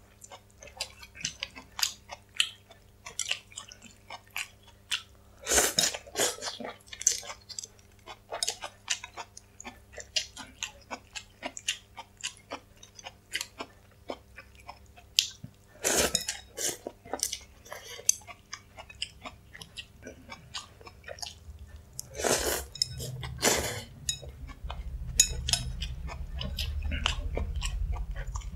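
Close-miked eating of noodle soup: wet chewing and mouth clicks throughout, broken by four louder slurps of noodles, about five seconds in, around sixteen seconds, and twice just after twenty-two seconds. A low rumble comes in near the end, and a faint steady electrical hum runs underneath.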